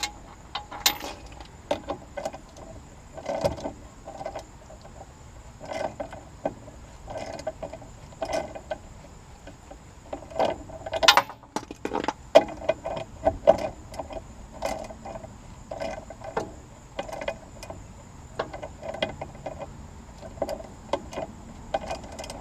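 Ratchet clicking in repeated bursts of back-strokes as a 16 mm nut is run down and tightened on the bottom of a new sway bar end link.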